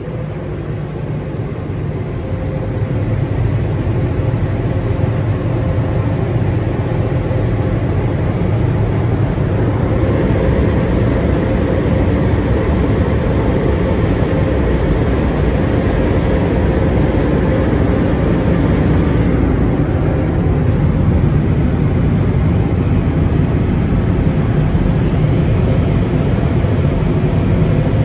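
WashWorld car-wash blower dryers running, a loud steady rush of air heard from inside the car. It swells over the first few seconds, then holds.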